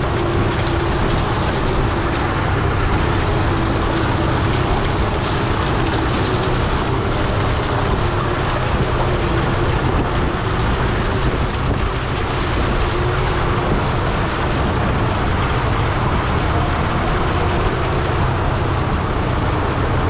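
Tractor engine running steadily, with a whine that wavers in pitch through the first half.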